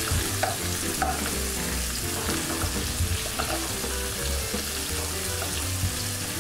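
Rabbit pieces sizzling as they brown in oil in a non-stick pan, stirred with a metal spoon that gives a few light clicks against the pan in the first second or so.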